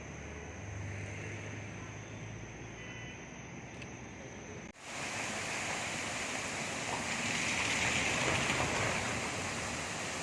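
Steady rushing noise with a faint low hum; about five seconds in it cuts off abruptly and resumes louder and brighter.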